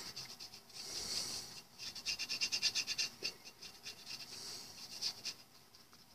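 Small brush scrubbing inside a steel lock case: a run of quick, scratchy strokes, fastest about two to three seconds in, with a few scattered strokes before and after.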